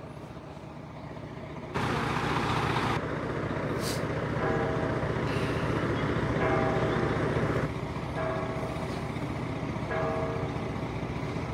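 Fire engine's diesel engine running steadily. About two seconds in it gets louder with a brief rush of hiss, and from about four seconds a whining tone comes and goes over it.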